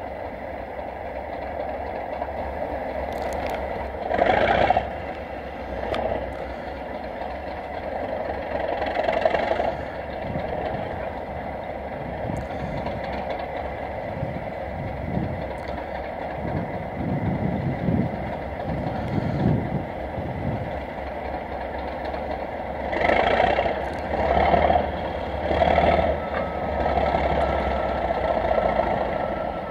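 A pair of Class 37 diesel-electric locomotives, English Electric 12CSVT V12 engines, idling steadily while standing. A few louder, short puffs of heavy breathing from the person holding the camera come in about four seconds in, again near nine seconds, and several times in quick succession near the end.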